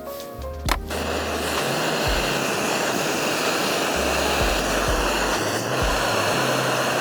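Electric air pump switching on about a second in and running steadily with an even rushing whir, inflating an air bed.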